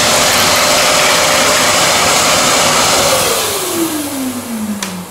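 Homemade gypsum-board grooving tool built on an angle grinder, running loud with a vacuum dust hose on it; about three seconds in it is switched off and winds down with a falling whine, while the vacuum's noise stays on underneath.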